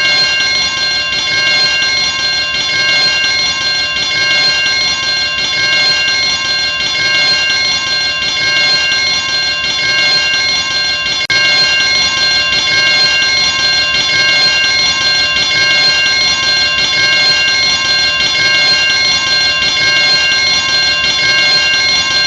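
Fire alarm bell ringing continuously: a loud, steady, high ring that does not let up.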